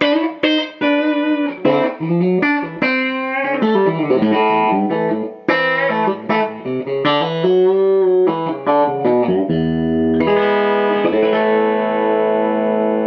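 Electric guitar played clean through a Fender Princeton Reverb amp: a run of single-note phrases with string bends, then about ten seconds in a chord struck and left to ring out.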